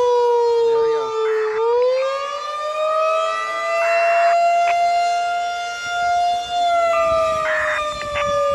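Outdoor warning siren sounding for a test, wailing: its pitch sinks for the first second and a half, climbs for about two seconds, holds, then falls again from about two-thirds of the way through.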